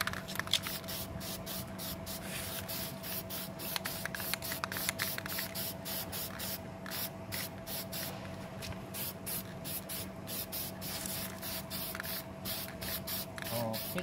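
Aerosol spray-paint can hissing in many short bursts with brief pauses, laying the final coat of black paint on a car door handle.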